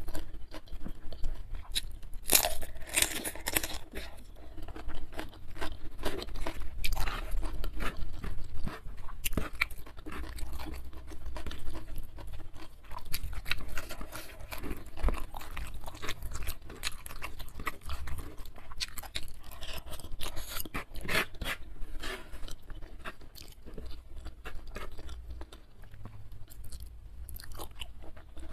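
A person chewing and crunching food close to the microphone, in an irregular run of small crunches and mouth clicks, louder for a few seconds near the start and again past the middle.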